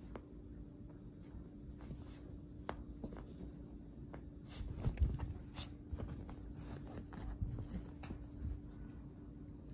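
Light scattered taps, clicks and rustles of a small dog moving about and playing, with a louder cluster of knocks about five seconds in, over a steady low hum.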